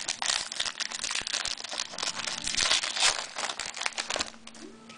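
Trading-card pack wrapper crinkling as it is torn open and handled, a dense crackling that dies down after about four seconds.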